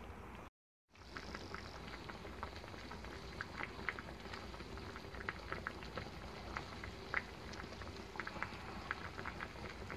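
Pot of Korean clear rockfish soup (ureok malgeun-tang) boiling: a steady faint hiss with many small, irregular bubbling pops. The sound cuts out briefly about half a second in, then the boiling carries on.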